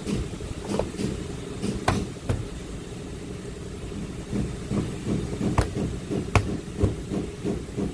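Plastic door-trim parts of a 2013 Nissan Altima's inside door panel being handled and pressed into place: scattered sharp clicks and knocks, the two sharpest about five and a half and six and a half seconds in, over a steady low hum.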